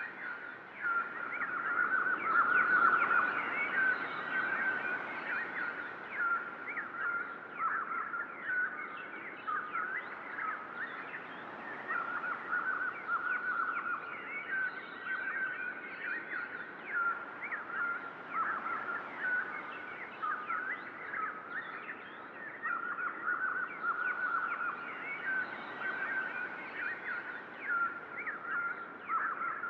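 A chorus of small songbirds chirping continuously, with dense overlapping calls and a trill that recurs roughly every ten seconds.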